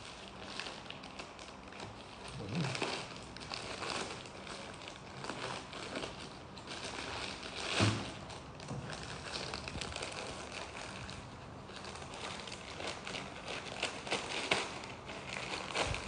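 Rustling and crinkling from handling a canvas school bag close to the microphone, with scattered light clicks and one louder knock about eight seconds in.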